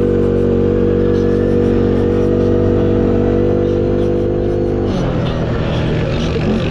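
CFMoto 500's single-cylinder engine running at a steady, even speed. About five seconds in, the steady tone drops lower and turns rough and uneven.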